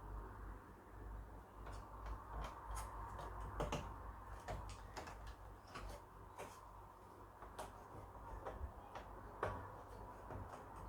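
Scattered small clicks and plastic taps of a Molex power connector being pushed onto a CD-ROM drive and its cables handled inside a desktop computer case, over a faint low hum.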